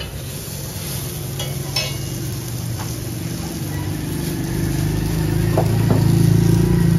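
Burger buns sizzling on a large flat iron griddle, with a few clinks of a metal spatula in the first seconds. A street vehicle's engine hum grows louder in the second half and becomes the loudest sound near the end.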